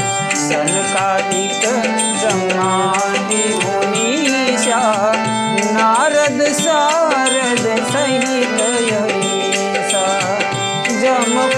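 Indian devotional music: tabla keeps a steady rhythm under sustained harmonium chords, with a melody line that glides and bends in pitch over them.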